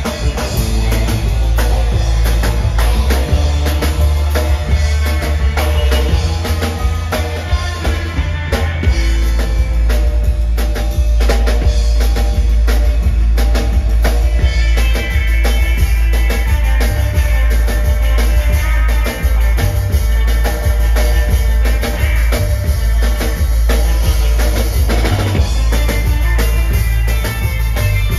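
Live surf rock band playing an instrumental: Yamaha drum kit to the fore, with upright bass and electric guitar.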